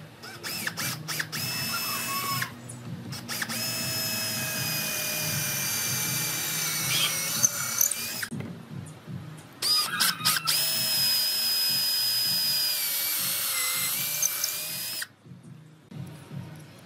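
Cordless drill boring holes through a wooden rail: a few short trigger blips, then two long runs of steady motor whine, each about five seconds, with a pause between them.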